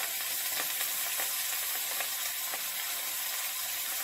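Beef brisket searing in hot rapeseed oil in a pot, sizzling steadily with small crackles.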